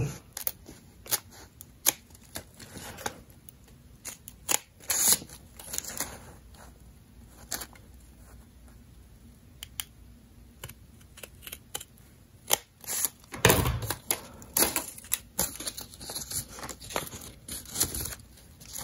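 Scissors snipping through layered, folded printer paper in short, uneven cuts, with paper rustling as the sheets are handled. The loudest stretch comes about two-thirds of the way in.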